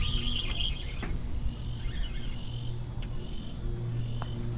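Steady high-pitched chorus of insects, pulsing as it swells and fades, over a low steady hum.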